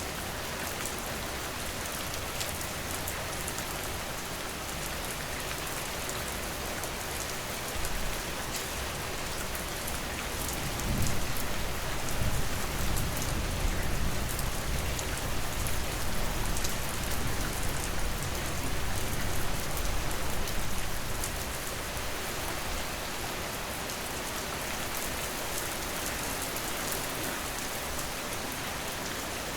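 Steady heavy rain falling on a surface, a dense hiss with fine patter of drops. About a third of the way in, a low rumble swells and rolls on for some ten seconds before fading back to the rain alone.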